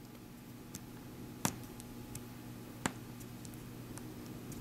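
Light handling clicks as fingers press a small ball of polymer clay into a half-dome on a hard, smooth work surface: two sharp clicks about a second and a half apart, with fainter ticks between. A steady low hum runs underneath.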